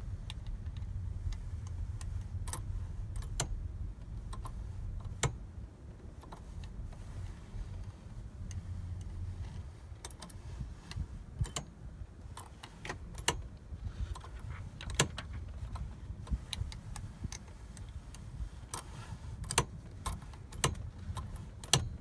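Seat belt with an automatic locking retractor being pulled and let back by hand: its metal latch plate and webbing give scattered sharp clicks, few at first and coming more often in the second half, over a low rumble.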